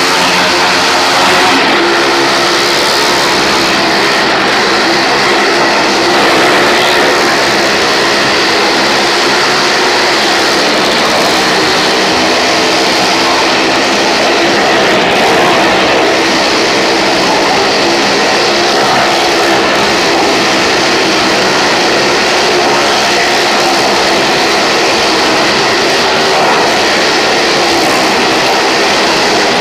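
Engines of small cars and a motorbike riding round the wooden wall of a well-of-death drum, running loud and steady, the pitch wavering up and down as they circle.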